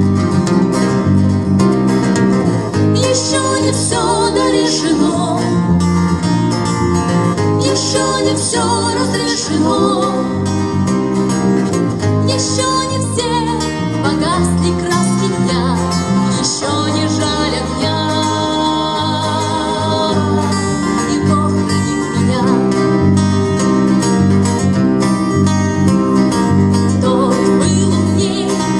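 Band music with guitar over steady bass and drums, a wavering lead melody running through it, in a passage with no sung words.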